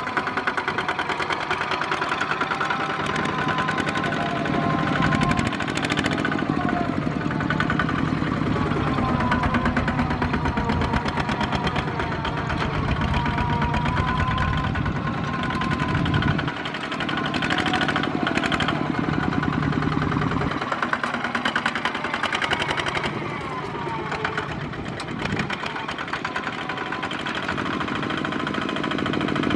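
Single-cylinder diesel engines of Kubota walking tractors running and chugging as they haul trailers of rice sacks along a field track. The sound shifts in level and pitch as one passes close by and others approach.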